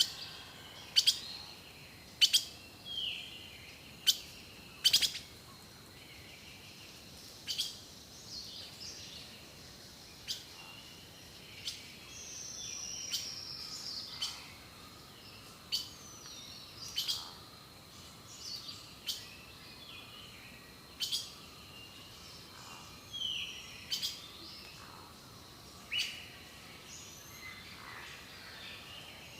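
Several birds singing and calling: sharp, loud chips every second or two among short chirps and whistles, with a longer falling whistle about twelve seconds in.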